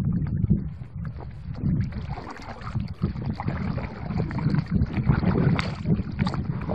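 Wind buffeting the camera's microphone in uneven gusts of low rumble, with fainter splashing of water around a kayak as it is paddled.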